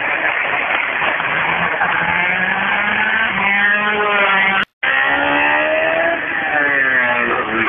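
Open-wheel single-seater race car engines at full throttle on a hill climb, the note rising in pitch as a car accelerates past. The sound drops out for an instant about two-thirds of the way through, then a second car's engine rises and falls as it comes up the climb.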